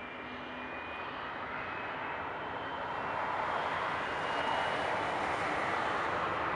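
Jet engines of a four-engine Boeing 747-400F freighter at takeoff power during the takeoff roll. The noise grows steadily louder as the aircraft comes down the runway, with faint high whining tones above it.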